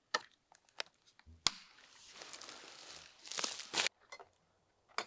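Trail camera being strapped to a pine trunk: sharp plastic clicks from the camera housing, then a rustling, rasping noise as the nylon strap is pulled tight, louder for about half a second after the middle, with a last click near the end.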